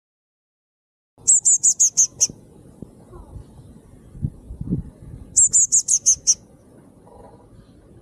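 Blue tit calling: two quick runs of about seven high, thin chirps each, the first about a second in and the second near the middle.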